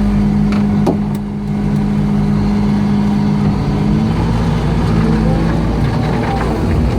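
Excavator's diesel engine running steadily, with its tone shifting and wavering about four seconds in.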